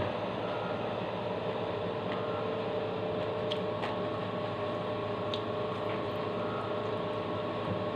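Steady electrical hum of a running fan or household appliance, with a few faint ticks.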